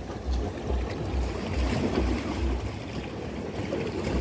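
Sea waves washing against the jetty, with wind on the microphone and a low, regular thumping about twice a second.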